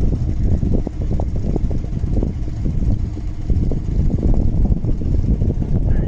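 Boat engine idling as a steady low rumble, with wind buffeting the microphone in uneven gusts.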